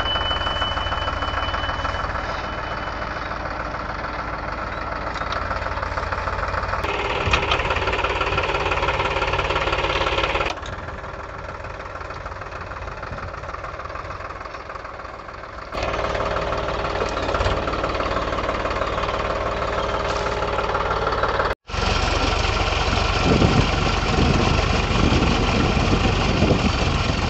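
Powertrac Euro 45 tractor's diesel engine running steadily as it pulls a puddler and leveler through a flooded paddy field. The sound jumps abruptly in level and tone several times.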